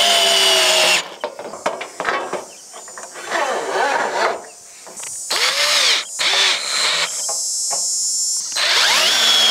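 Cordless drill driving a large Torx-head lag screw through a metal wall bracket into a wood stud. A long run of motor whine that sags in pitch under load and stops about a second in, then several seconds of short trigger bursts and clicks, then another long run near the end with the pitch again falling as the screw drives in.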